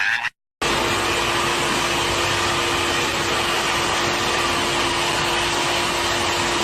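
Steady whirring motor noise with a constant hum, starting abruptly just after a short cut to silence and holding unchanged throughout.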